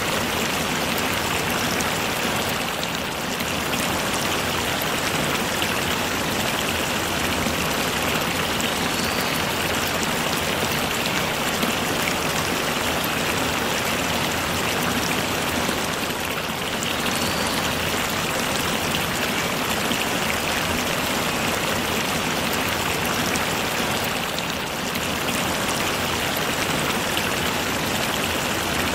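Rain falling steadily, a continuous even hiss that dips slightly three times.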